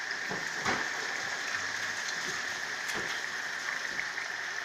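Food sizzling and crackling steadily in pans on a gas stove, with a couple of light knocks.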